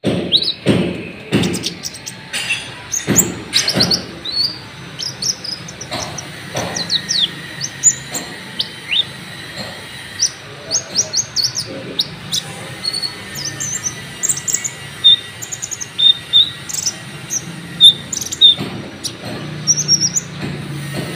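A konin sunbird singing: a busy run of short, high chirps and quick sweeping notes. Sharp clicks sound in the first few seconds.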